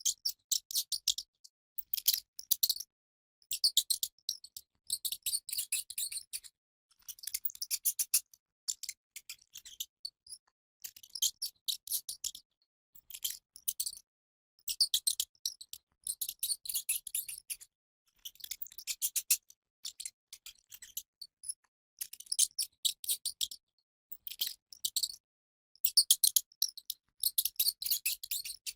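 A mouse making rapid, high-pitched clicking chatter in bursts of about a second, with short pauses between.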